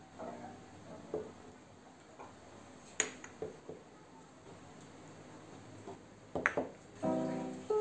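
Small glass jars with metal lids set down and shifted on a wooden counter: a sharp clink about three seconds in and a few more about six and a half seconds in. Soft piano background music plays underneath and grows louder near the end.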